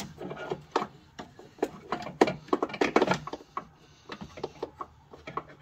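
Irregular clicks, taps and knocks of metal parts being handled as a clutch master cylinder is pushed through the firewall and worked into its mounting. Busy for the first three seconds or so, then sparser.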